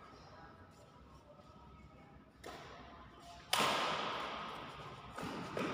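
Badminton rally: racket strikes on a shuttlecock, the loudest a sharp hit about three and a half seconds in that echoes around the hall, with further hits near the end.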